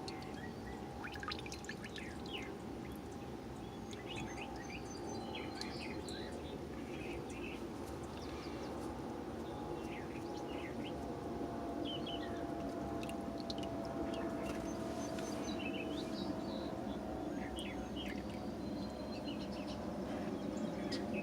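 Small birds chirping over a steady low drone from a passing airplane, which grows gradually louder.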